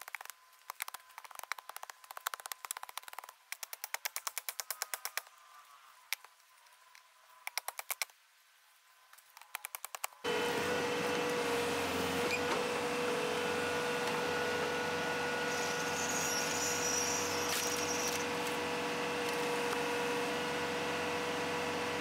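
A steel tamping bar strikes the backfill around a wooden post in rapid bursts of sharp hits. About ten seconds in, this cuts to a Bobcat T180 compact track loader's engine running steadily with a held whine as it backfills the hole.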